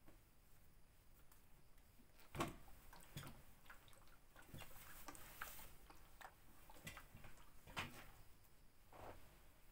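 Quiet ironing sounds: a garment rustling as it is handled and laid out on the board, with a few scattered light knocks, the loudest about two and a half seconds in and another near eight seconds.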